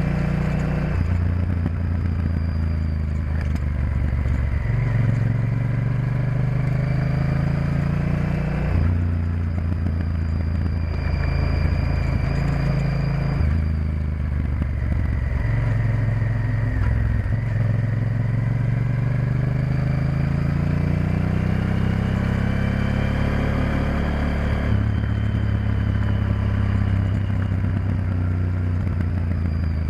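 Honda Varadero XL1000's V-twin engine running under way on a winding road. Its revs rise and fall several times with throttle and gear changes, including a long climb in pitch about two-thirds of the way through.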